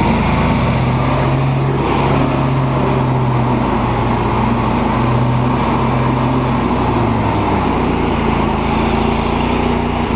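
Cub Cadet 3000 Series lawn tractor engine running without the choke, a steady hum whose note shifts partway through. It runs only somewhat well on a cleaned but unrebuilt carburetor, which the owner puts down mostly to old gas still in it.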